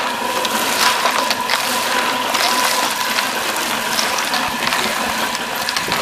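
Homemade mini concrete mixer running: wet concrete mix tumbles and scrapes around inside its metal bucket drum with a continuous gritty rattle and clicking. A steady high whine from the electric drive runs under it.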